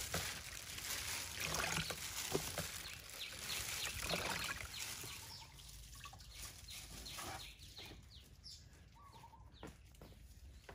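Water sloshing and dripping as cut taro stalk pieces are rinsed by hand in a plastic basin and dropped into a plastic colander, with soft knocks of the pieces landing. The handling grows quieter about halfway through, leaving birds chirping.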